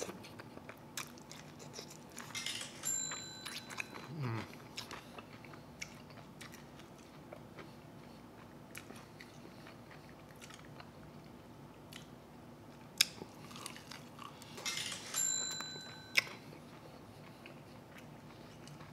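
A person eating chicken wings: wet chewing, lip smacks and small mouth clicks, with a few louder clusters of biting.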